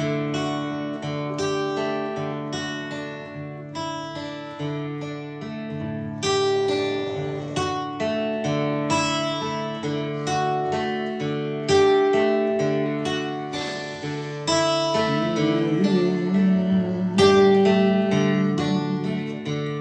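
Guitar strummed and picked in a steady rhythm, ringing chords with no voice, growing louder in the second half.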